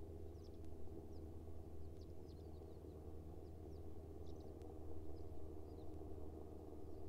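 Faint outdoor quiet: a steady low hum with scattered faint, short high chirps from birds.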